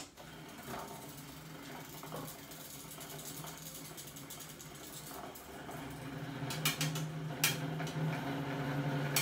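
Electric fan's motor humming noisily and growing louder, with a few clicks or rattles about two-thirds of the way through. The fan is faulty: the owner suspects a failing motor coil, as it gives off a burnt smell when left running.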